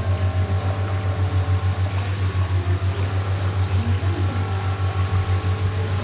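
Water churning in a swirling foot bath driven by circulation jets, over a low pump hum that pulses about five times a second.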